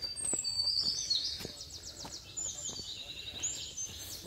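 A songbird singing a varied song of high whistles and fast trills, over a hiker's soft footsteps on bare rock.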